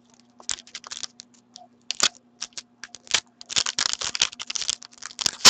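Foil trading-card pack being torn open and its wrapper crinkled by hand: scattered crackles and clicks, busier from about three and a half seconds in.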